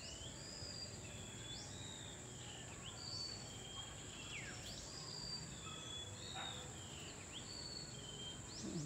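Birds calling in the trees: short whistled notes and quick downward-sweeping calls, repeated every second or two, over a steady high-pitched insect drone.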